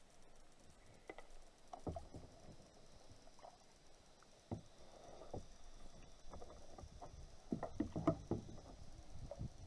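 Irregular water splashes and light knocks, a few at a time, busiest near the end.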